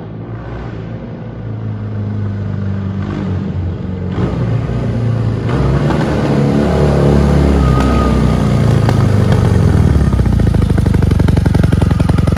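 BMW R100 RS motorcycle's air-cooled boxer twin running as the bike rides up, growing steadily louder as it approaches, its revs rising and falling.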